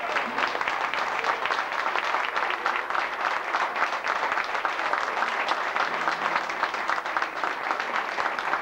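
Audience applauding steadily as a song ends: dense hand-clapping.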